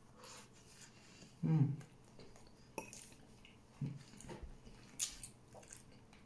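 Quiet eating by hand over a plate: mouth and chewing sounds, a short low hum about a second and a half in, and a few sharp clicks and taps.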